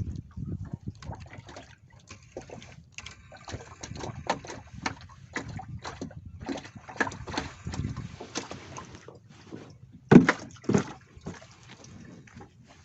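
Water sloshing and lapping, with scattered small clicks and knocks and two louder thumps about ten seconds in.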